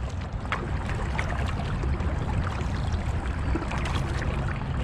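Kayak paddle strokes: water splashing and dripping off the blades of a double-bladed paddle, with many small irregular drips over a steady low rumble.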